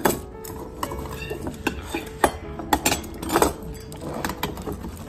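Stainless steel cat-food bowls clinking and knocking on a wooden floor, with dry kibble rattling in them: a string of sharp irregular clinks.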